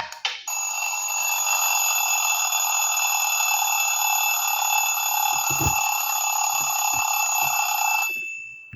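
Samsung Galaxy Mini 2 phone playing one of its built-in tones through its small loudspeaker: a single steady, unbroken ringing tone lasting about seven and a half seconds, fading out near the end.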